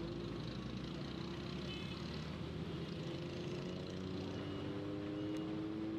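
Road traffic on a wet road heard from a moving vehicle: engines running and tyres on wet asphalt. About halfway through, a steady engine drone comes up.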